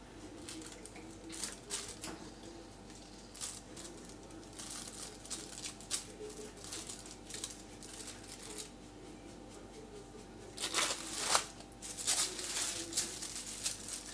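Plastic bag sheeting rustling and crinkling while a kitchen knife cuts strips from a soft slab of homemade toilet-bowl gel laid on it, with scattered soft scrapes and handling noises. Louder crinkling comes in two bouts a few seconds before the end as the plastic is handled.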